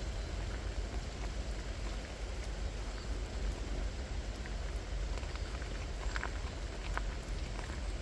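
Steady rain falling, an even hiss with a low rumble underneath and scattered sharp drop ticks, a couple of them louder toward the end.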